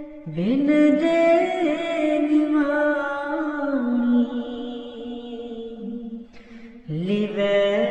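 A single voice singing a devotional shabad in long held notes that glide slowly between pitches. There is a short pause with a breath about six and a half seconds in, and then a new phrase begins.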